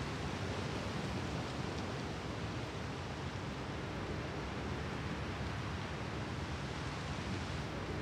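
Steady, even wash of sea surf along the shore, with no single wave standing out.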